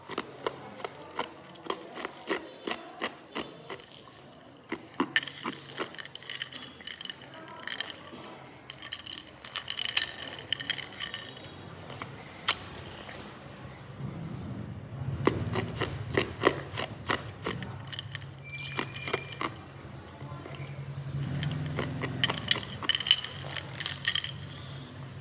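Hard ice being bitten and chewed close to the microphone: a dense run of sharp crunches and cracks with several louder snaps. A low steady hum sits underneath from about halfway on.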